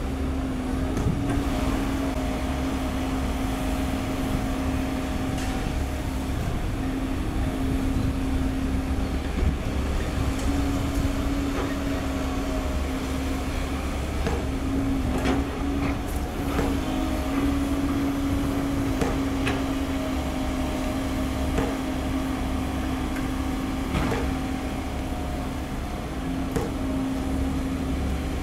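Komatsu PC130 hydraulic excavator's diesel engine running steadily under load as it digs soil and loads it into a dump truck, with a few short, sharp knocks scattered through it.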